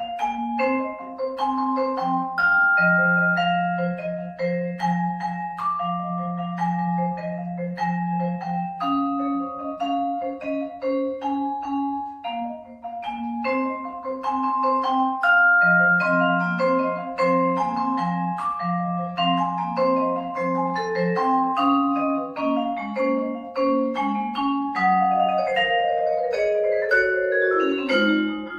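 Solo vibraphone played with mallets: a line of ringing, long-sustaining notes over held low notes, ending in a fast descending run.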